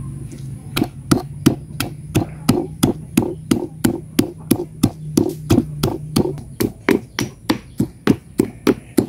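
Stone pestle pounding chilies and shallots in a deep stone mortar: even knocks about three a second, starting about a second in.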